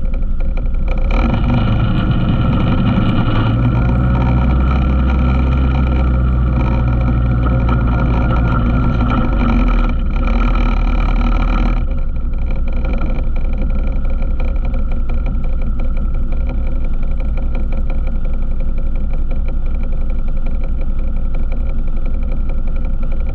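ATV engine running under throttle, pulling harder from about a second in, then easing off to a lower, steadier drone at about the halfway point.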